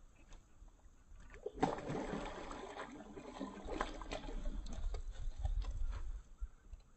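A hooked red-bellied pacu thrashing and splashing at the water's surface as it is pulled in on a fishing rod. The splashing breaks out suddenly about a second and a half in, is strongest for the next couple of seconds, then dies down.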